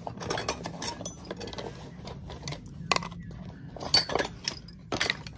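Irregular metallic clinks and knocks, like hand tools and metal parts being handled during work on a bass boat's fuel tank. The sharpest come about three, four and five seconds in.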